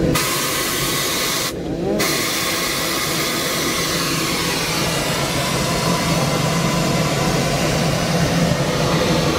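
Steady hiss and low running rumble inside the cab of a steam locomotive under way. The hiss drops out for a moment about one and a half seconds in.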